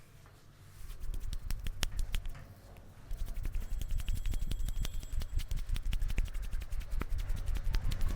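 Hands rapidly tapping and patting on the head during a traditional Indian head massage: a fast run of taps with dull thuds underneath, starting about a second in, with a short pause about halfway through.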